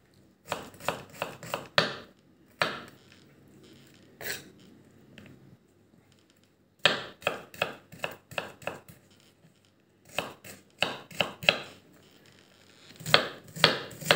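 Kitchen knife chopping red onion on a wooden cutting board: runs of quick knife strikes on the board, with pauses between.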